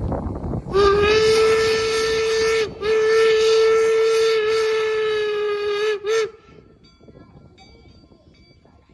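Steam whistle of an approaching replica 1869 steam locomotive. It blows a long blast about a second in, breaks briefly, holds again for about three seconds, and ends with a short toot.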